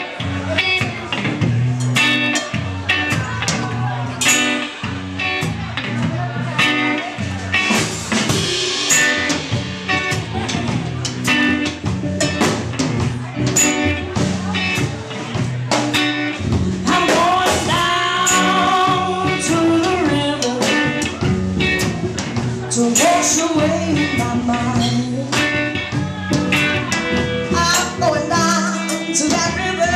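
Live blues band playing: electric guitar, upright bass and drum kit keeping a steady beat, with a woman singing into a microphone over them.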